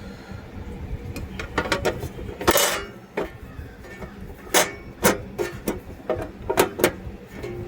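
Metal screws and parts of an electrical outlet panel being handled and set down: a scatter of sharp clinks and knocks, with a short scrape about two and a half seconds in.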